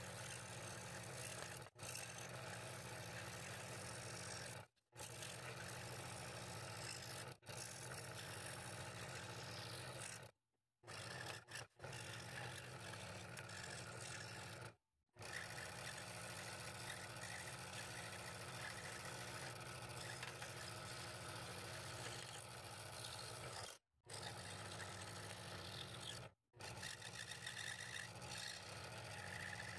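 Scroll saw running steadily with a low motor hum as its fine blade cuts fretwork in thin walnut. The sound cuts out briefly several times.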